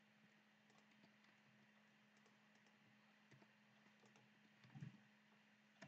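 Near silence: faint room tone with a low steady hum and a few faint, scattered clicks from a computer mouse or keyboard.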